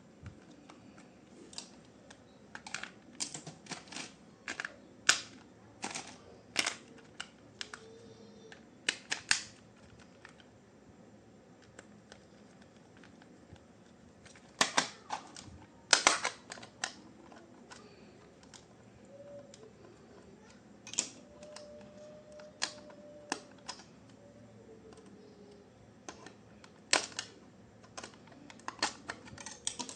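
Plastic toy parts and packaging being handled: irregular sharp clicks and taps, a few of them louder, in small clusters.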